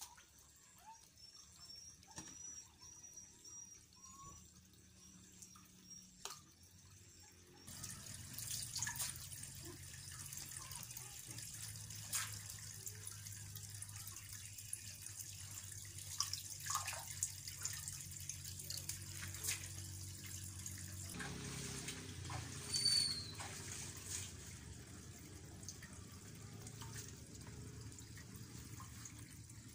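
Water trickling and dripping steadily in a concrete fish tank, growing louder about eight seconds in.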